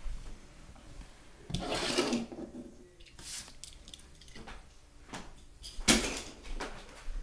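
Die-cast Hot Wheels cars clattering on plastic track: a short rattling rush about a second and a half in, then several sharp knocks, the loudest about six seconds in.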